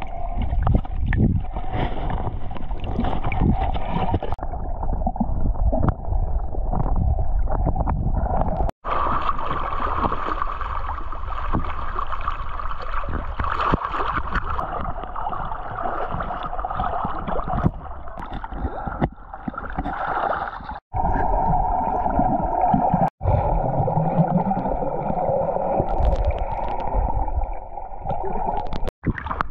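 Seawater gurgling and sloshing around a waterproof camera as it moves below and at the surface, muffled and rushing while under water. Four times it cuts out to silence for an instant.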